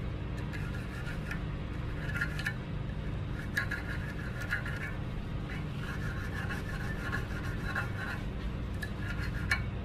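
Thin hand file scraping over the barb of an 8 mm stainless-steel fish-spear point in repeated short strokes at an uneven pace, filing away rough edges to smooth the barb.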